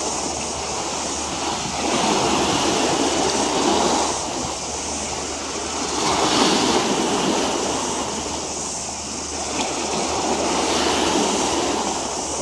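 Harbour water washing against the waterfront, swelling and easing every few seconds, over a steady low hum.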